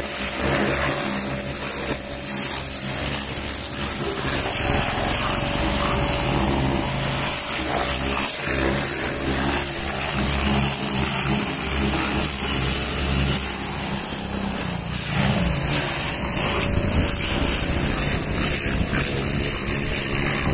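Car-wash pressure washer running: a steady pump-motor hum under the hiss of the high-pressure water jet spraying against the car's wheel and body.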